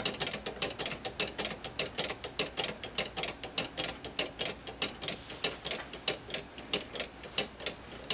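3D-printed grasshopper escapement clicking as its pallet arms engage and release the escape wheel teeth, the clock running on its maintaining spring for a bench test. Sharp, even clicks come about five a second, then stop.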